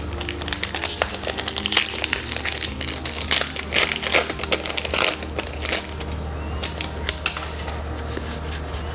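Foil Magic: The Gathering booster pack wrapper crinkling and crackling as it is torn open by hand. The crackling thins out about six seconds in. Soft background music plays underneath.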